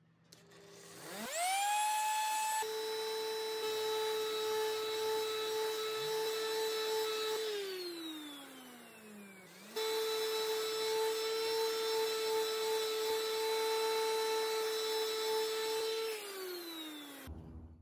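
Random orbital sander sanding the arched top edge of a wooden tray end: the motor spins up to a steady high hum, then winds down with a falling pitch. It starts again abruptly and winds down once more near the end.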